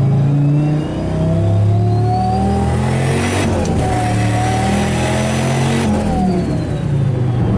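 Turbocharged Dodge Ram SRT-10's V10 engine accelerating, heard from inside the cab. The engine note dips briefly about a second in, then climbs in pitch with a high whine rising alongside, and falls back near the end as the throttle eases off.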